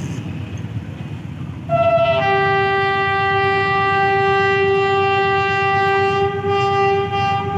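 Horn of Pakistan Railways RGE24 diesel locomotive 5221 sounded on the approach. About two seconds in it gives a short higher note, then a long steady lower tone of about five seconds, over the low rumble of the oncoming train.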